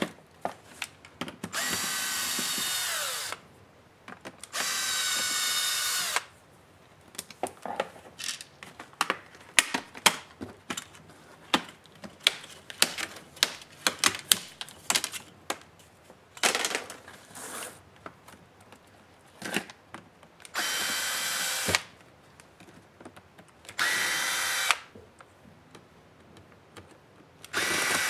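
Cordless screwdriver running in several short bursts of about a second each as it backs out small screws. Between the bursts, in the middle, comes a run of sharp plastic clicks and snaps as the display bezel's clips are pried loose.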